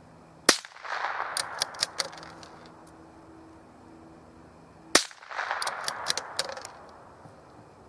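Two shots from a scoped rifle, about four and a half seconds apart. Each crack is followed by a second or so of rolling reverberation with a few sharp clicks in it.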